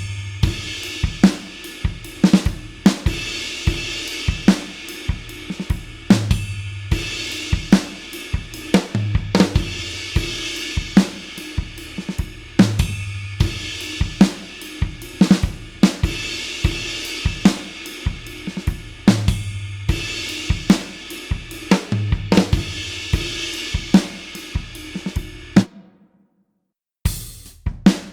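Rock drum kit playing a steady groove of kick, snare and hi-hat under a constant cymbal wash, with a heavier kick-and-crash accent about every three seconds. The beat cuts off cleanly near the end, and after about a second of silence a new drum pattern starts.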